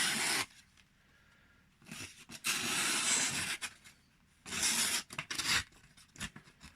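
A freshly sharpened Manley Wasp knife with 12C27 steel makes three rough, papery slicing passes, each about a second long, with small crackles between them. It is a cutting test of the new edge, which cuts but not cleanly.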